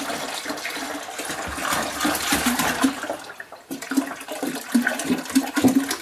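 Liquid pouring from a plastic jug into a plastic bucket: a steady splashing pour, then, after a short break about halfway, rapid glugging as the upended jug drains empty.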